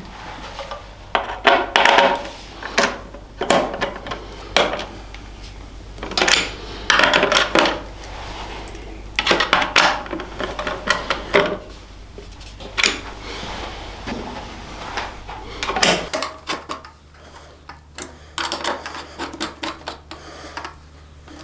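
Metal hand tools at work on bolts: a socket on a T-bar wrench clinking onto and turning the bolts, with irregular sharp metallic clicks and short scrapes.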